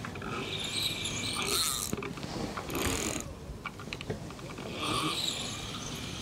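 A fixed-spool fishing reel being wound in short bursts, giving a grainy whirr of the gears and spool with a few sharp clicks in the middle, as the line is retrieved while a carp is hooked on the bomb.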